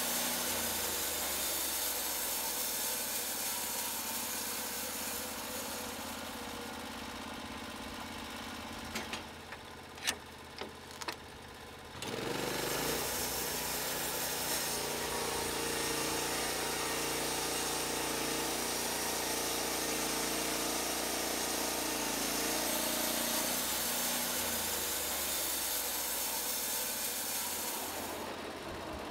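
Portable band sawmill's small engine: machine noise fading away, a few sharp knocks, then the engine comes in suddenly about twelve seconds in and runs steadily until it drops away near the end.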